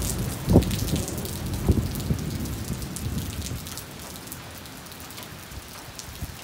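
Thunder rumbling over steady rain, with two sharp cracks in its first two seconds, then dying away about four seconds in. Rain hisses throughout, with single drops ticking close by.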